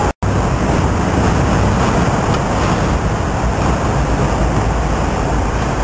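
Steady rushing noise, heaviest in the low rumble, typical of wind buffeting an outdoor microphone, cut off for an instant just after the start.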